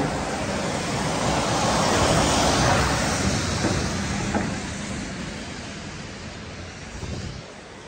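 A vehicle passing close by: a steady rushing noise that swells to its loudest about two to three seconds in, then fades away.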